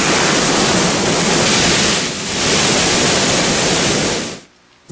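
Loud, steady rushing hiss, a magic sound effect for a genie vanishing in a swirl of smoke back into its magic lamp. It dips briefly about two seconds in and fades out quickly near the end.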